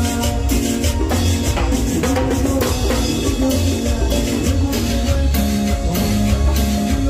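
Live band playing Latin dance music: drum kit and percussion keeping a steady beat under bass and keyboard.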